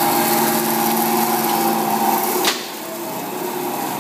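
DoAll vertical bandsaw running in its high speed range, blade at about 4,000 feet per minute, a steady whine over a hiss. About two and a half seconds in there is a sharp click, and the running noise drops sharply to a quieter hum.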